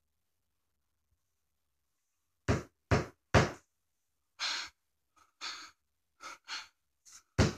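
Knocking: three sharp knocks in quick succession, then several softer knocks and a short breath-like rush of noise.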